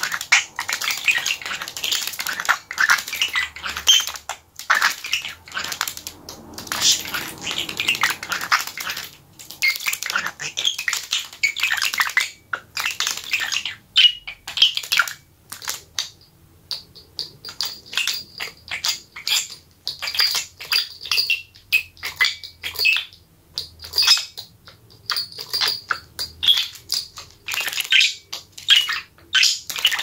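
A budgerigar's feet scratching and clicking on sheets of paper, a rapid, crackly patter of small steps. Through the second half, two small bells hanging on a plastic bottle ring again and again as the bird pecks and pushes at them.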